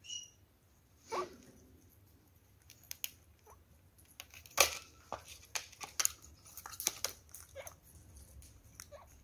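Kakariki parakeets feeding on grated carrot from a plastic dish: irregular sharp clicks and taps of beaks and feet, the loudest a little before the middle.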